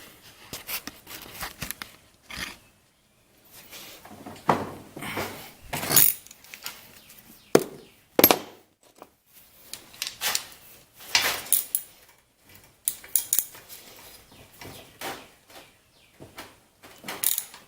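Irregular metallic clinks and knocks of hand tools: a wrench and socket being handled and set on the cylinder head bolts of a Briggs & Stratton L-head engine.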